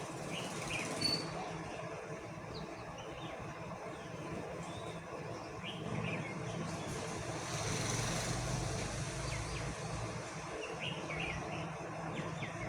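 Daitoshi 56-inch GK ceiling fan running: a steady whoosh of air from the blades over a low motor hum, swelling slightly about eight seconds in. Small birds chirp briefly now and then.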